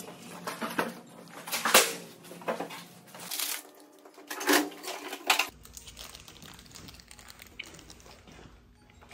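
Irregular clicks, knocks and packet rustling as snack packets are loaded into the spiral coils of an open vending machine; after about five seconds the handling dies down to a faint low hum.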